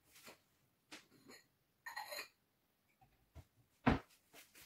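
Drinking glasses and a kitchen cupboard being handled: a few light knocks, a short glassy clink with a ringing tone about two seconds in, and a louder knock near the end.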